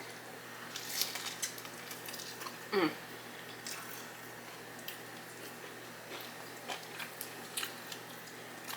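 Close-miked chewing of hot Cheeto-crusted lobster tail: scattered soft crunches and wet mouth clicks, with a short hummed "mm" about three seconds in.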